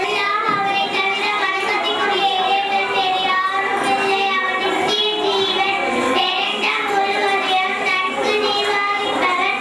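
A young girl singing solo into a microphone, a melody of long held, wavering notes.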